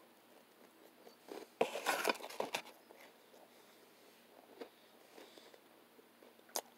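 A person chewing and biting food close to the microphone, loudest for about a second near two seconds in, then quiet apart from a few small clicks.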